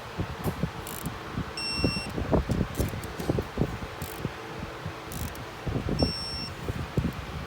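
Hand ratchet clicking in uneven runs while tightening bolts on the engine, with two short electronic beeps about four seconds apart.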